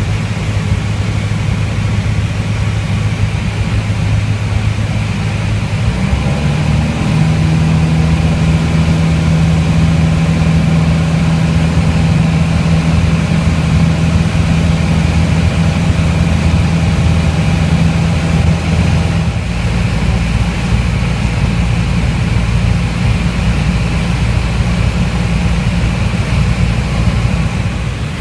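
Piper PA-28's piston engine and propeller droning steadily, heard inside the cabin in flight. About six seconds in, the pitch steps up and the drone gets a little louder; its tone changes again about twenty seconds in.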